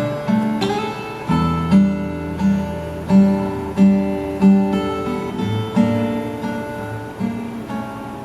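A live band plays an instrumental passage with no singing: acoustic guitar strumming a repeating pattern of chords, with low bass notes joining about a second in.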